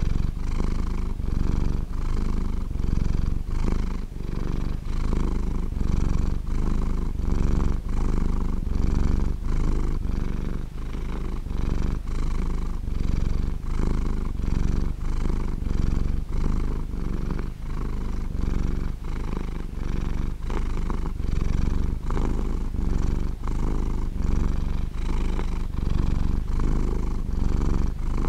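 Domestic cat purring close up, a continuous deep rumble that swells and eases with each breath in and out.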